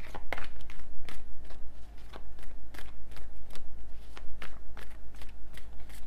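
A deck of tarot cards being shuffled by hand: a steady patter of short card snaps and clicks, about three or four a second.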